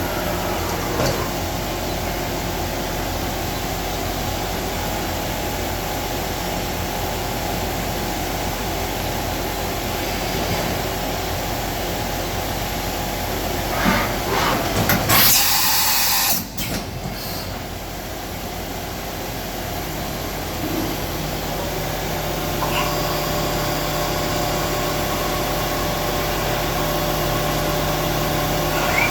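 CNC vertical machining center running, with a steady mechanical hum. About halfway through, a loud rush of noise lasts about two seconds. Later a steady low tone joins and holds to the end.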